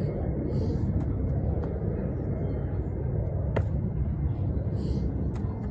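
Steady low outdoor rumble, with two faint breathy exhales from a man catching his breath between burpees, about half a second in and near the end, and a couple of sharp ticks in between.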